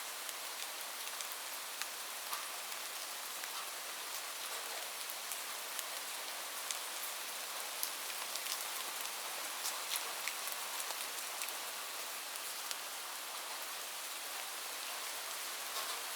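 Steady rain falling: an even hiss with scattered sharp ticks of single drops striking.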